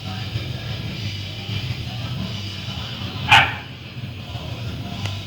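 Background music with a steady low beat, and a single short dog bark a little over three seconds in.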